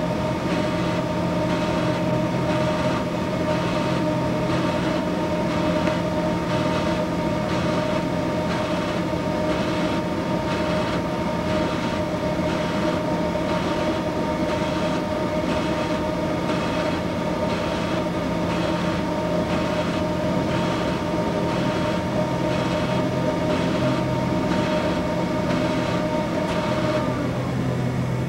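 Orbital TIG welding arc inside an enclosed weld head: a steady hiss and hum with whining tones, pulsing regularly. Near the end the tones slide down in pitch and stop as the arc tapers off at the end of the weld, leaving a low hum.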